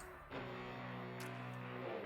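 Soft background music: a held chord of steady tones that shifts to a new chord about a third of a second in.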